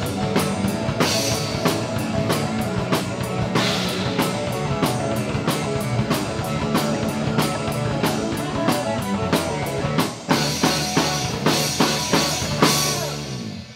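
Rock band playing live: electric guitars, bass guitar and a drum kit keeping a steady beat. Near the end the band plays a run of accented cymbal-crash hits, then stops on a final hit that rings away.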